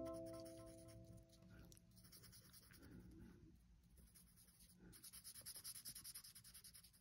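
Faint scratching of a felt-tip marker on paper as it colours in with short strokes, turning into rapid back-and-forth strokes near the end. The last notes of background music die away in the first two seconds.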